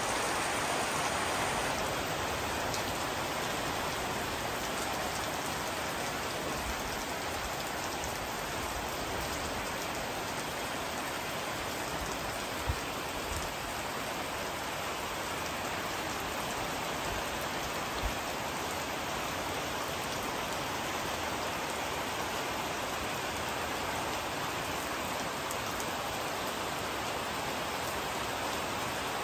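Steady heavy rain falling, an even hiss with no break. Two brief knocks stand out partway through.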